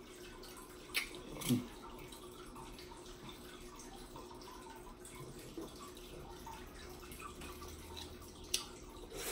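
Quiet room tone: a faint steady hiss and hum, with two small clicks or knocks about a second and a second and a half in.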